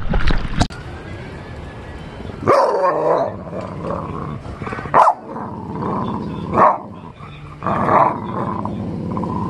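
A short splash of water, then a pit bull growling in four or five short bursts.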